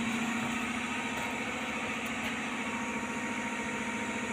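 Steady machine hum with a constant low tone and an even hiss above it, unchanging throughout.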